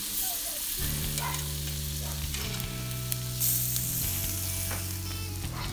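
Beef sizzling on a parrilla grill over embers, a steady hiss while it is being cut on the grate. From about a second in, low held music notes that change every second or two run underneath.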